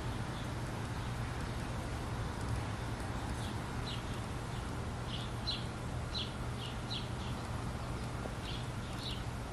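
Outdoor ambience: a steady hiss with a low hum underneath, and from about a third of the way in, a dozen or so short high chirps, irregularly spaced and some in pairs.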